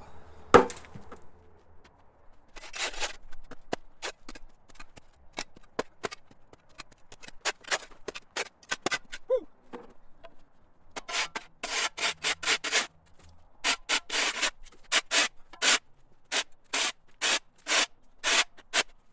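Rough scraping strokes of a hand tool over the ground. A sharp knock comes just after the start, then scattered strokes, then from about halfway a steady run of two to three strokes a second.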